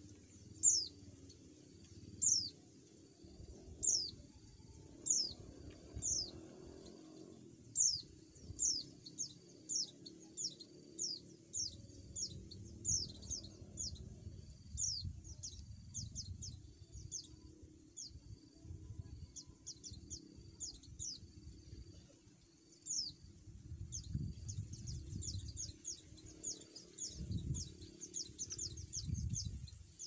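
White-eye (pleci) calling: short, high chirps, each sliding down in pitch, repeated about once a second and quickening to several a second from about 24 seconds in.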